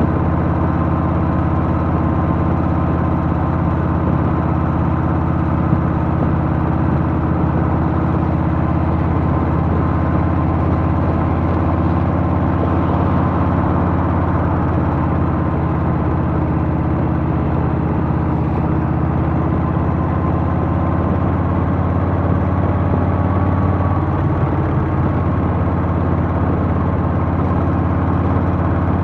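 Harley-Davidson Softail's Milwaukee-Eight V-twin engine running steadily as the motorcycle cruises at an even speed.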